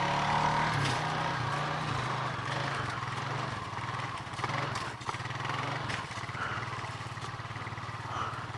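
Small Honda ATV engine running at low revs, its pitch rising and falling with the throttle during a stand-up wheelie for the first five or six seconds, then settling back to a steadier low run.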